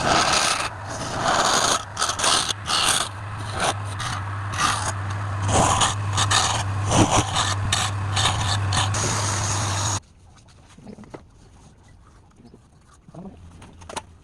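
Wood lathe running with a steady motor hum while a turning tool scrapes against the spinning workpiece, the scraping coming and going in strokes. It cuts off abruptly about ten seconds in, leaving only faint small clicks and rustles.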